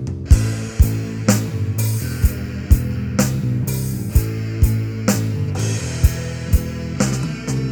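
Instrumental music with a steady beat: sharp drum hits about two a second over sustained low bass notes.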